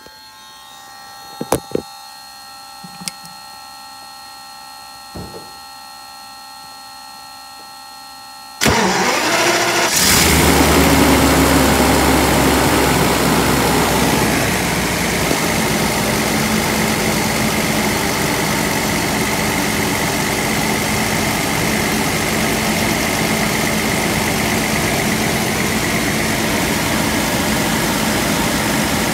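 A few faint clicks, then about eight and a half seconds in the 1997 Mercedes-Benz SL600's 6.0-litre V12 cranks and fires. It runs loudest at a fast idle for about four seconds, then settles a little lower into a steady idle with a faint held whine. This is a start from cold, on a freshly refitted electronic throttle actuator.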